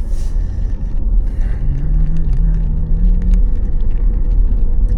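Steady low road and tyre rumble inside a moving car's cabin, with a brief low humming tone about two seconds in.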